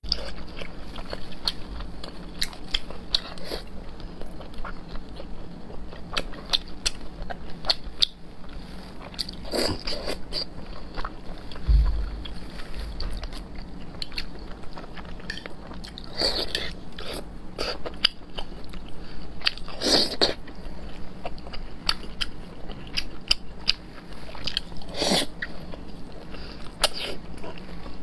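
A person chewing and smacking their lips over braised pork belly, with many short wet mouth clicks and a few longer, louder wet mouth sounds. There is a brief low thud near the middle.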